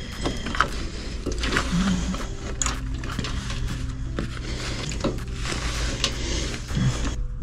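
Hands working low-voltage wiring and plastic wire nuts: scattered light clicks and rustles over a steady low hum.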